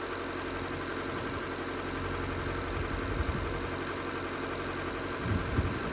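Car engine idling steadily, with a couple of light knocks near the end.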